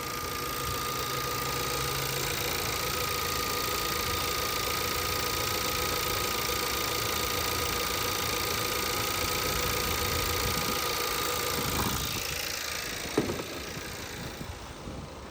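2017 VW Passat's 1.8-litre turbo four-cylinder engine idling steadily with its air filter disconnected, a thin steady whine over the engine noise. This is the engine that develops random misfires on all cylinders once it has run a few minutes. Near the end the engine sound gets quieter and there is a single sharp knock.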